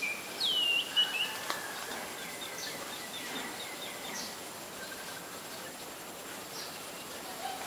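Small birds calling: a whistled note that slides down and levels off near the start, then short high chips and faint thin calls every second or two over a steady outdoor hiss. A sharp click about a second in.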